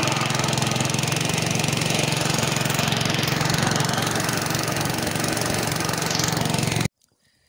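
Boat engine running steadily while the fishing boat is under way. The sound cuts off abruptly near the end.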